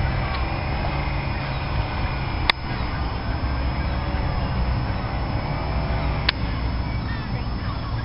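Steady low rumble of distant road traffic, with two sharp clicks, one about two and a half seconds in and one about six seconds in.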